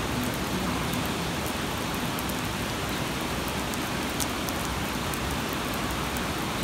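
Steady rain falling: an even hiss with scattered light drop ticks.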